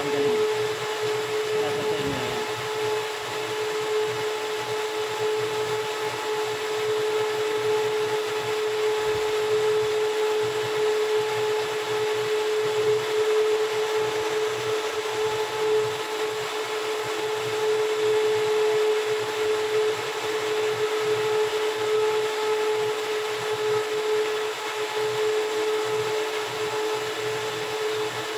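A motor running steadily nearby: a constant hum with a mid-pitched whine that holds one pitch without speeding up or slowing down.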